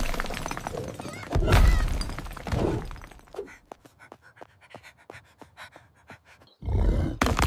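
Loud crashing and breaking noises come in bursts, about a second and a half apart at first; in the middle comes a quieter stretch of many short, sharp clicks and ticks, then another loud crash near the end.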